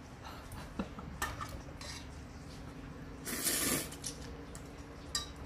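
A few light clicks and clinks of tableware on a table, with a short rushing noise about three seconds in.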